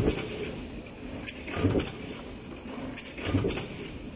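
Power press running a cabinet-hinge stamping die, with a thud about every 1.7 seconds as each stroke comes down, three times, and light metallic clicks between the strokes.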